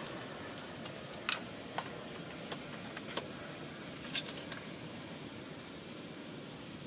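A scattering of light clicks and taps of plastic being handled, about ten over the first four and a half seconds, as a funnel is set into the engine's oil filler neck and the oil container is readied to top up the oil.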